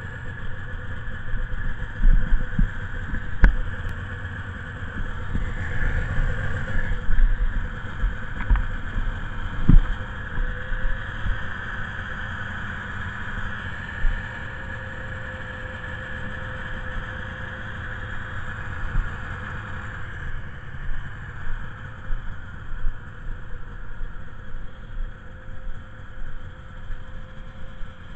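Polaris two-stroke snowmobile engines idling steadily, with irregular low thumps in the first ten seconds or so.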